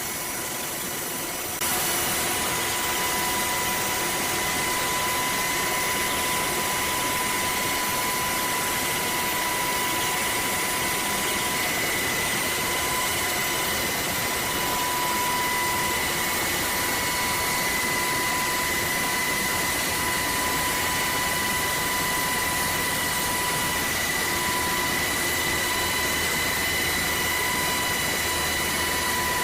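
HH-60 Pave Hawk rescue helicopter running steadily in a hover: an even rush of rotor and engine noise with a steady high turbine whine on top, getting a little louder about two seconds in.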